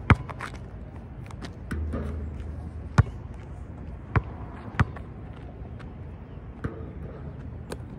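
Basketball bouncing in single, irregularly spaced thumps: four sharp ones in the first five seconds, then two fainter ones near the end.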